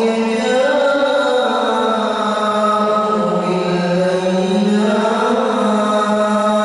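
A man reciting the Quran aloud in a melodic chant during prayer. He holds long notes that slide down in pitch through the middle and rise again about five seconds in.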